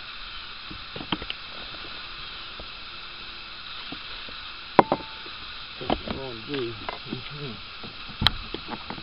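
Fishing tackle being handled in a bass boat: a few small clicks, then a loud sharp click about five seconds in and a sharp knock a little after eight seconds, over a steady hiss. A low voice mutters briefly just after six seconds.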